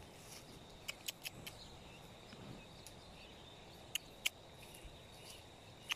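Quiet rural outdoor ambience: a faint steady high-pitched insect drone, with a handful of short sharp ticks, three in quick succession about a second in and two more around four seconds in.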